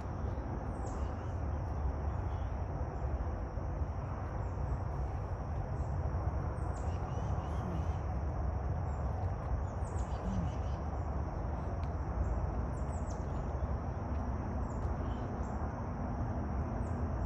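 Outdoor ambience: birds chirping now and then in short falling calls over a steady high-pitched hum and a low rumble.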